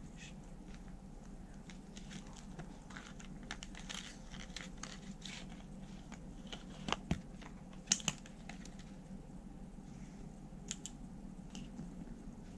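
Plastic packaging and paper sticker sheets being handled: soft crinkling and rustling with scattered small clicks, and a few sharper clicks a little past halfway.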